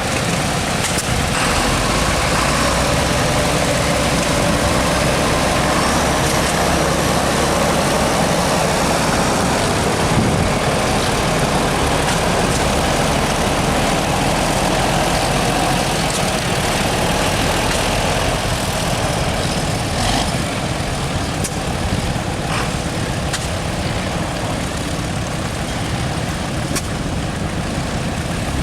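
John Deere 4020 six-cylinder tractor engine running steadily while driving a belt-powered sawmill. A whining tone rides over it for the first two-thirds or so and then fades, with a few short knocks along the way.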